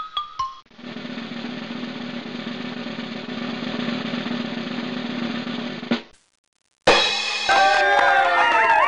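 A few falling chime notes, then a snare drum roll that builds in loudness for about five seconds and ends on a sharp hit. After a moment of silence, a crowd cheers loudly.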